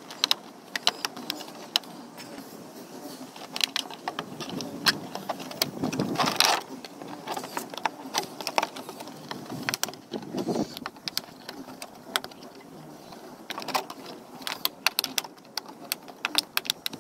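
Thin wire being twisted around the handle of a 5-litre plastic water bottle: an irregular run of sharp clicks and ticks of wire against plastic, with two louder rustling handling noises about six and ten seconds in.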